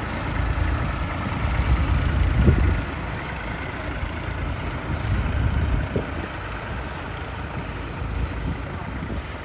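Tractor engine running steadily while its spray pump throws a wide jet of spray, with wind rumbling on the microphone, heaviest in the first three seconds.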